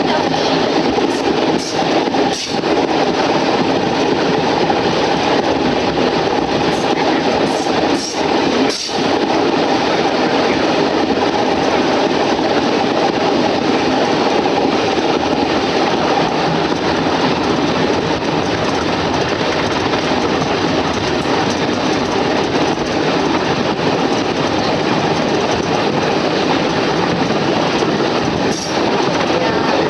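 Heritage train running along a single-track branch line: a steady rumble of wheels on the rails, with some clickety-clack.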